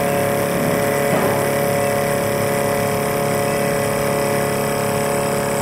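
Vertical milling machine cutting across the top of a metal block on its final surfacing pass: the spindle and cutter give a steady whine of several constant tones over an even machining noise.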